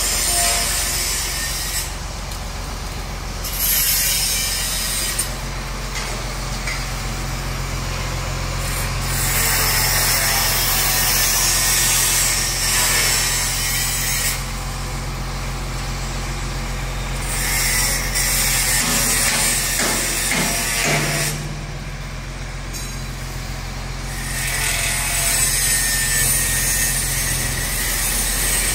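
Beiben truck's engine running to drive its knuckle-boom loader crane's hydraulics, a steady low hum whose pitch steps up once about two-thirds of the way through. A hissing rush swells and fades every few seconds while the crane is worked.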